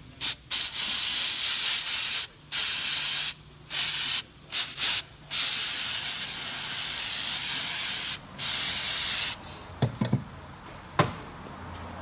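Aerosol cleaner spray fired in about eight bursts, a few short and some lasting two to three seconds, washing out the fuel filter cartridge housing. A few light knocks near the end.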